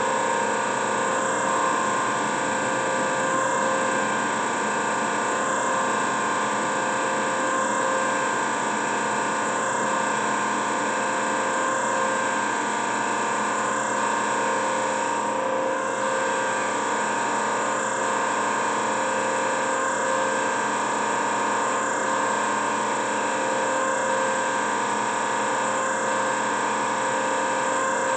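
TOS BPH20 surface grinder running under power, its spindle motor and hydraulic pump giving a steady hum made of several tones. A slight regular change comes about every two seconds as the table cycles.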